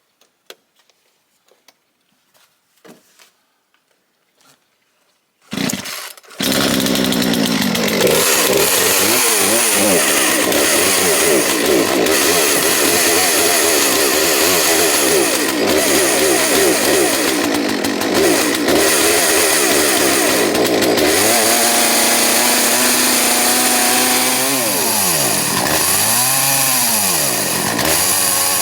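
Old two-stroke Stihl chainsaw firing on a pull about six seconds in and then running loud and steady. Near the end its revs drop and rise again several times. It sat three years with old fuel, and the owner suspects a gummed-up carburettor.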